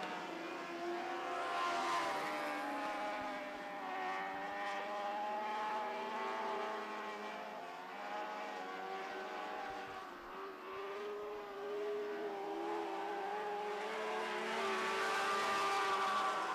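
Several motorcycle-engined sprint cars, Suzuki GSX-R 1000 inline-fours, running at high revs around a dirt oval. The engine notes rise and fall as the cars go through the turns, and the sound swells about two seconds in and again near the end as cars pass closer.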